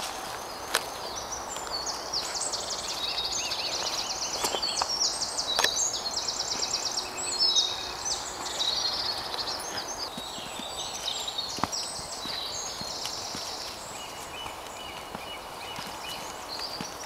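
Several small songbirds singing in woodland, overlapping rapid trills and repeated high chirps that are busiest in the middle. Scattered footsteps and sharp clicks on the leaf-strewn path come through underneath.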